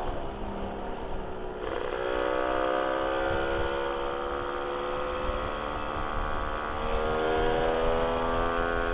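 Modified Yamaha V80 two-stroke engine, fitted with a Ninja R cylinder block and head and a freshly fitted aftermarket exhaust, running hard at speed. Its pitch climbs slowly and steps down twice, about two seconds in and near the end, like gear changes. A low wind rumble runs underneath.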